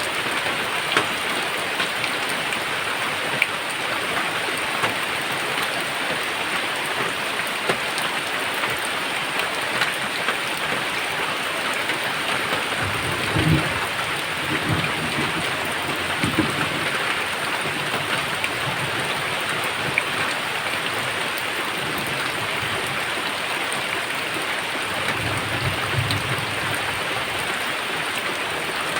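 Steady rain with scattered drop ticks, and low thunder rumbling twice, around the middle and again near the end.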